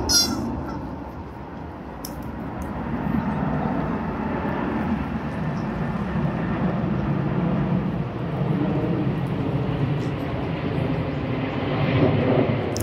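Passing aircraft, a steady rushing drone that swells and eases. A short bird call is heard at the very start.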